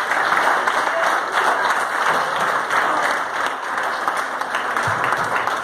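Congregation applauding, a dense steady clatter of many hands clapping that thins slightly near the end.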